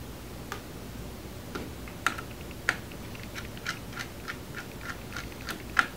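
Light clicks and taps of a small Phillips screwdriver working the motherboard screws of a Chromebook and of the small screws being handled, two sharper clicks about two seconds in, then a quick even run of light clicks, about three a second, in the second half.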